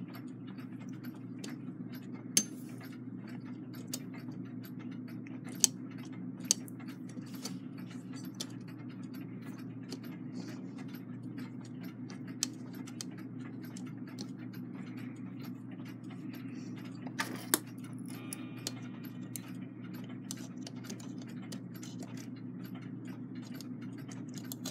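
Scattered small metallic clicks and taps from the brass plate and arbors of a Takeda clock movement, as the top plate is worked down over the pivots during reassembly. A few sharper clicks stand out, the loudest about six seconds in, over a steady low background hum.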